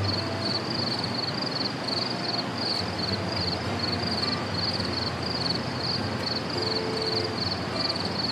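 Steady outdoor hiss with a high-pitched chirp repeating evenly about three times a second, and faint soft tones beneath.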